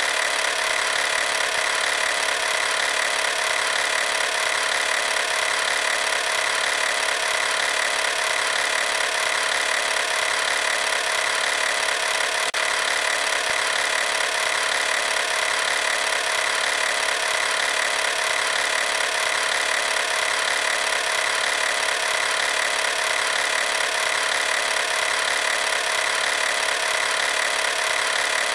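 Steady, unchanging machine-like whirring with a constant hiss that holds at one level throughout, with no separate calls or knocks standing out.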